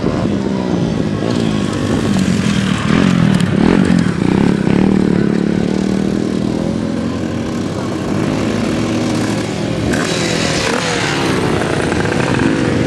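Several dirt bike engines revving as a group of bikes rides past on a dirt track, their pitch rising and falling with the throttle. Loudest a few seconds in, with another wave of revving near the end.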